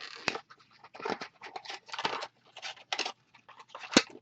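Handling noise of unboxing: irregular rustling and scraping of packaging and a small handheld recorder, with a sharp click about four seconds in.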